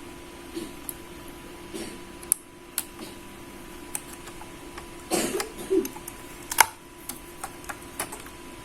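Small plastic clicks and taps of a laptop's internal ribbon-cable connector and parts being unlatched and handled, irregular, with sharper clicks about two seconds in and at about six and a half seconds, over a faint steady hum.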